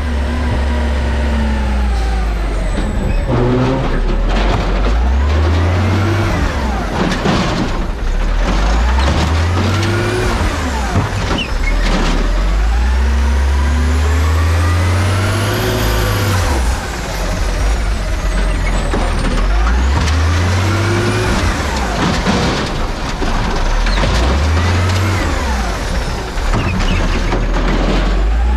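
Autocar garbage truck's engine revving up and falling back again and again, every four to five seconds, as the truck moves stop-and-go between curbside bins, with short bursts of hiss from the air brakes.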